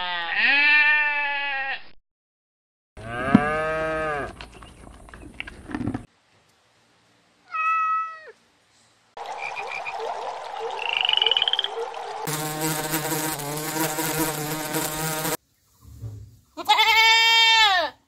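Goat bleating, a loud arched call about two seconds long, at the start and again near the end. In between come other animal calls with sudden cuts between them, among them frog calls in the middle.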